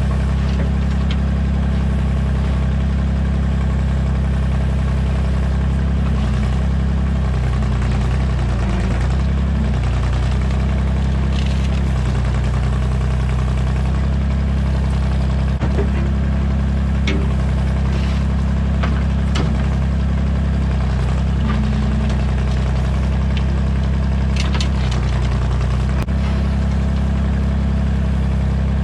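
Excavator engine running steadily while the bucket digs into dirt and gravel, with a few short sharp clicks in the second half.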